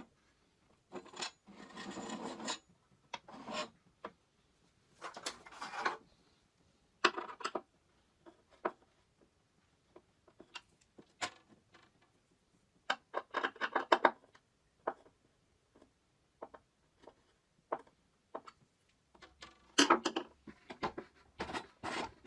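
Irregular scraping, rubbing and sharp clicks of hard objects being handled and slid against each other; no motor running.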